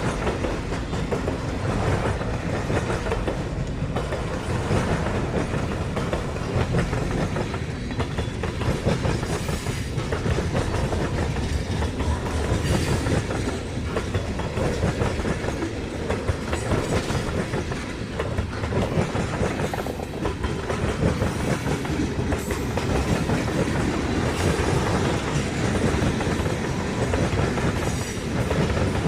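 CN manifest freight train rolling steadily past, with repeated clicks from the wheels running over the track.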